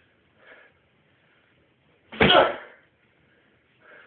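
A strike smacking a Thai pad with a sharp burst of breath, once, loudly, about two seconds in; two much fainter short sounds come near the start and near the end.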